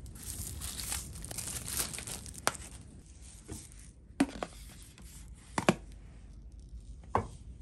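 Plastic wrap crinkling for the first two and a half seconds, then several short, sharp plastic clicks and knocks as a pre-carbon filter cartridge is handled and set into its plastic filter housing.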